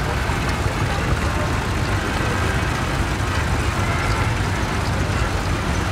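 Engines of several vintage tractors running at a slow crawl as they drive past in a line: a steady low rumble.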